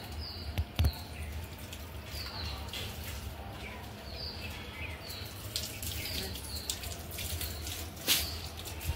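Water running, with a bird's short high chirps repeating every second or so. A sharp knock comes near the start and a louder one near the end.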